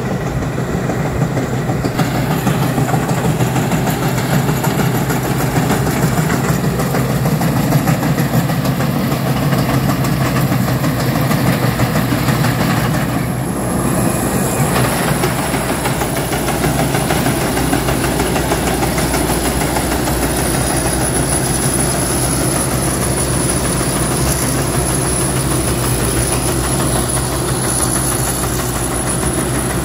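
Rice combine harvester running as it cuts and threshes, its engine and threshing machinery making a steady, dense mechanical rattle. About halfway through the sound shifts and a thin, steady high-pitched whine joins in.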